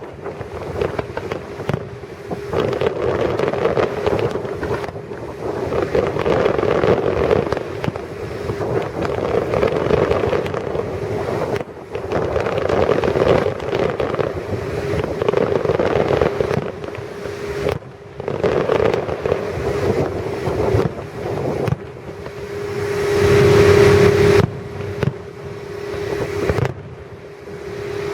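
Fireworks display going off continuously: a rapid run of bangs, booms and crackles over a rumbling wash. A steady mid-pitched tone runs underneath and swells loudest about two-thirds of the way through.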